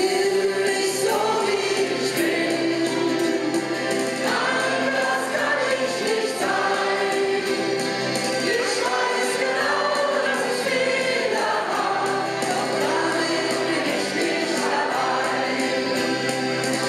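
A mixed group of men and women from a church band sings a song together into microphones, over a steady instrumental accompaniment.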